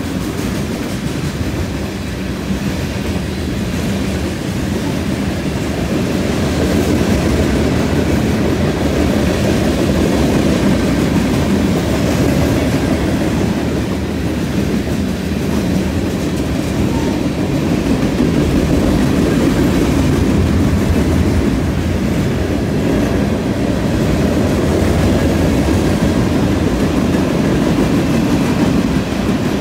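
Freight train of tank cars and covered hoppers rolling past steadily: a continuous rumble of steel wheels on the rails, threaded with many small clicks and clacks.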